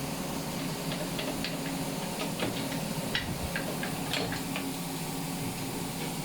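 Light clicks and taps from handling the parts of a disassembled automatic transmission, about a dozen spread over four seconds, over a steady background hum and hiss.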